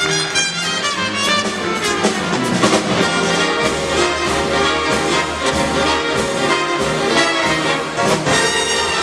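Big band playing: a brass section of trumpets and trombones over a drum kit, with short drum and cymbal strokes throughout.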